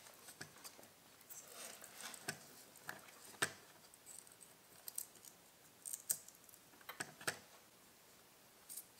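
Faint scattered clicks and light rustling as a foil-wrapped CCFL lamp holder is handled and pressed into the edge of an LCD panel's metal frame, with the sharpest click about three and a half seconds in.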